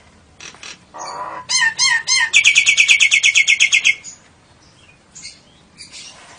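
Caged songbird singing: a short buzzy note, three looping whistled notes, then a loud, rapid run of repeated notes, about ten a second, lasting about a second and a half. A few scattered chirps follow.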